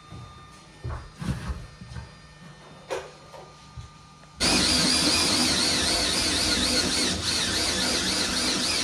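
Cordless drill with a hole saw cutting into a wall. It starts suddenly about halfway through and runs steadily with a wavering whine. Before it there are a few light knocks and clicks of hands working on a pipe fitting.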